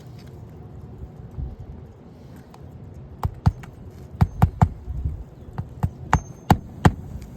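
A hammer driving a roofing nail through an asphalt shingle's nail strip into the roof decking: about nine sharp strikes in uneven groups, starting about three seconds in. Low wind rumble underneath.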